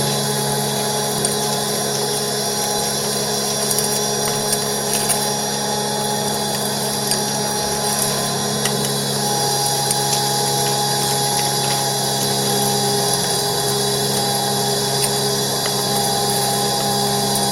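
Motorised ash vacuum running steadily while sucking ash out of a fireplace, a steady motor drone with scattered light ticks.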